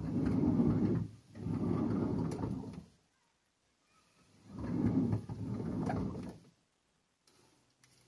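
Subaru Sambar van's rear sliding door sliding along its track. It is moved three times, each a sliding rumble lasting a second or two, the last about four seconds in.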